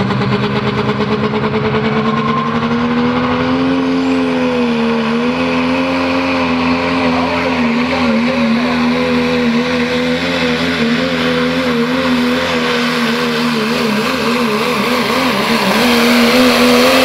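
Diesel 4x4 pickup truck's engine at full throttle, pulling a weight-transfer sled. Its pitch climbs over the first few seconds, then holds high and wavers under the load, getting slightly louder near the end.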